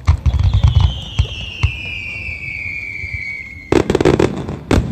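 Aerial fireworks: a bang, then a long whistle falling in pitch for about three seconds, cut off by a rapid burst of crackling bangs, with another crack near the end.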